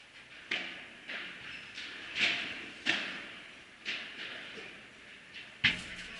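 Padel rally: the ball is served and struck back and forth by the rackets, bouncing off the court and its glass walls. It sounds as about six sharp pops at an uneven pace, each echoing in the big hall, with the loudest near the end.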